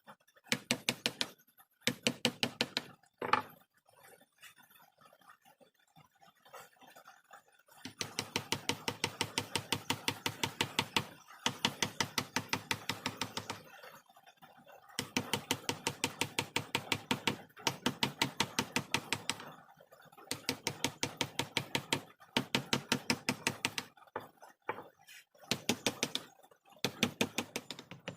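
Rapid, even tapping of a mallet driving a carving chisel into hardwood, about eight strikes a second, in runs of a few seconds with brief pauses.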